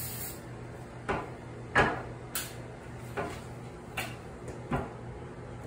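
Metal window balance rod being pushed and knocked into place in the window frame's side track: about six sharp clacks spaced irregularly, the loudest a little under two seconds in, over a low steady hum.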